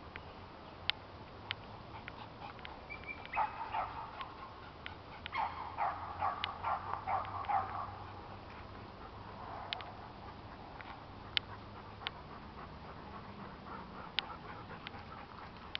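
High-pitched yelping from a small dog: a short run of yelps about three seconds in, then a quick string of about eight yelps a few seconds later. A few sharp clicks sound in between.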